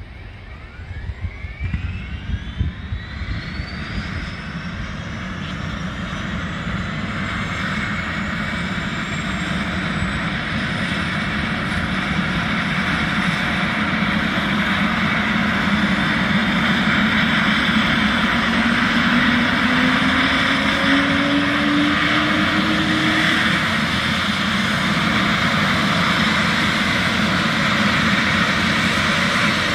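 Eurocopter EC155's Turbomeca Arriel turboshaft engine starting up: a turbine whine climbs steadily in pitch over the first few seconds. The sound grows louder as the engine and rotor spin up, then settles into a steady run, with a lower tone rising briefly about two-thirds of the way in.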